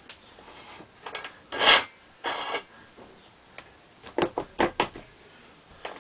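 Chrome spinning dance pole being worked into its mounting by hand, metal against metal: a loud rasping scrape a little under two seconds in, a shorter rasp just after, then a quick run of about six sharp clicks and knocks just after four seconds.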